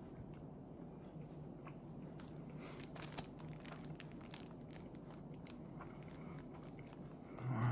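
Plastic wrapper of a convenience-store onigiri crinkling and crackling as it is handled and pulled open, busiest about two to three seconds in. Near the end comes a brief low vocal sound, the loudest moment.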